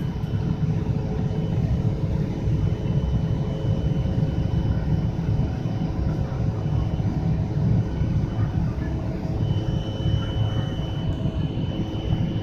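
Airliner cabin noise during takeoff: a steady low rumble from the jet engines and airflow, with a steady high whine over it that grows stronger about three-quarters of the way through.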